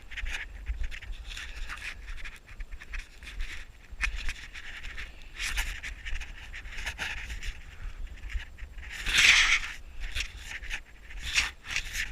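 Footsteps crunching through deep snow in an uneven walking rhythm, with wind rumbling on the microphone and a louder hiss about nine seconds in.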